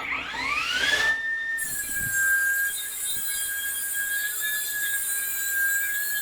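Electric motor switching on, its whine rising within about a second to a steady high pitch and running on; from about one and a half seconds in, a steady hiss joins it.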